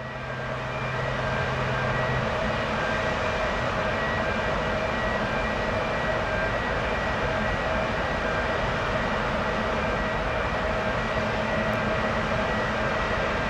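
Steady rumble and hum of a large cruise ferry's machinery as it lies at the quay, with several faint steady tones over it; a low hum drops out about two seconds in.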